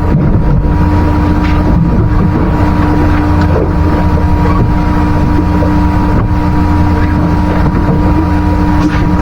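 A boat's motor runs steadily with a constant low hum and a held tone, and wind buffets the microphone.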